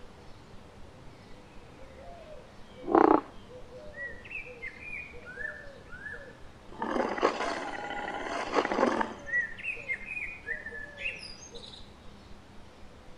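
Cartoon soundtrack of birds chirping in short stepped calls, with a short loud sound about three seconds in. A roar from the cartoon dinosaur, a Carnotaurus, lasts about two seconds in the middle.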